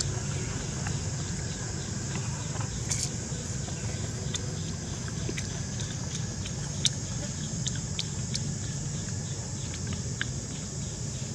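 Scattered small clicks and crunches of a baby macaque gnawing a corn cob, over a steady low rumble and a steady high hiss.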